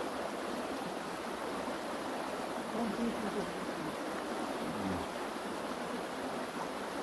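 Water of a mountain stream running steadily, with faint voices briefly around the middle.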